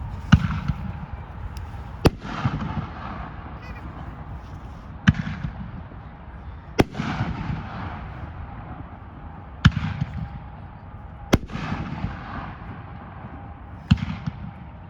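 Cowboy Fight firework firing shot after shot: seven sharp bangs a couple of seconds apart, each followed by a brief crackling tail from the burst. It has a little thump to it.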